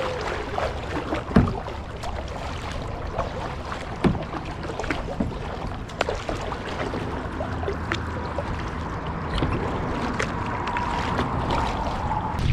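Double-bladed kayak paddle dipping and splashing in choppy water, with water lapping against the plastic hull and a few sharp knocks.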